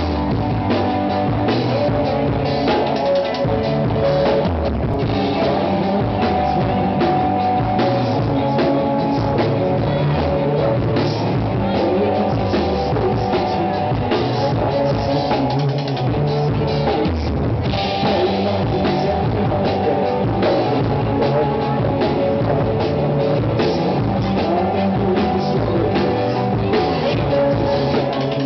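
Rock band playing live: electric guitars over a driving drum kit, continuous throughout.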